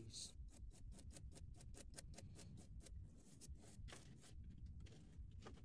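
A quick, faint run of clicks, about five a second, stopping about four and a half seconds in with a couple more near the end: a dog's claws clicking on a hard floor as it runs about.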